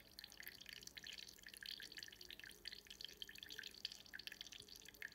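Faint, rapid, irregular dripping of liquid, coolant leaking inside a custom water-cooled PC case, over a faint steady hum.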